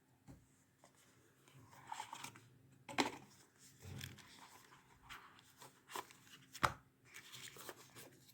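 Faint handling of an earbuds' cardboard retail box being opened: scattered taps and clicks with brief rustling and scraping of the packaging.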